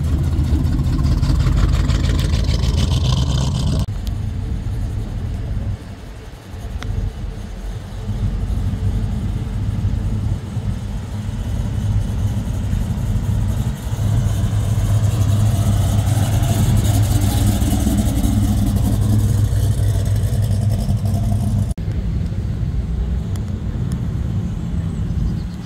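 Classic American cars' engines running with a low rumble as the cars roll past at low speed, one after another. There are abrupt changes between cars, and the rumble is strongest for several seconds past the middle.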